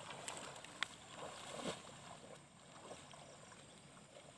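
Faint steady rush of a shallow river flowing over stones, with a single sharp click a little under a second in and a few soft scuffs.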